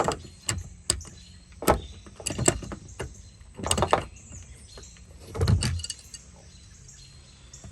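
An adjustable wrench loosening the retaining nut of a boat's ignition switch: about six irregular metallic clinks and knocks, with light rattling between them.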